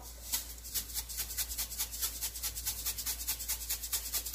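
Coarse kosher salt rattling inside a Morton shaker canister as it is shaken over a pot, in fast, even shakes of about six a second.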